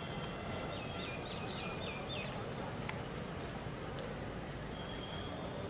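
Outdoor ambience: a steady background noise with a short run of high chirps about a second in and a thin, repeating high trill throughout.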